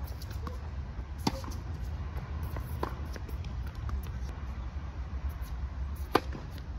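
Tennis balls struck by rackets during play: sharp pops of ball on strings about a second in and again near three seconds, then the loudest pop near the end as the near player hits his serve. A steady low rumble runs underneath.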